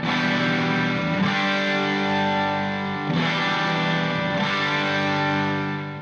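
Intro theme music: distorted electric guitar playing held chords that change every second or two.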